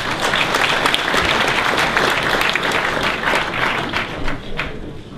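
Audience applauding an introduced speaker, many hands clapping together, dying away near the end.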